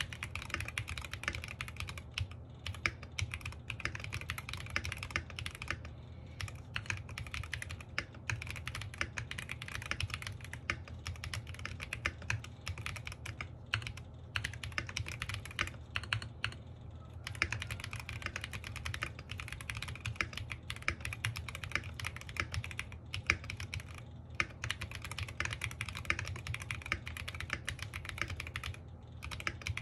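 Steady, fast typing on an NJ68 Max mechanical keyboard with pudding keycaps, foamed under the plate, switches and case bottom. The key presses run almost continuously, with a few brief pauses.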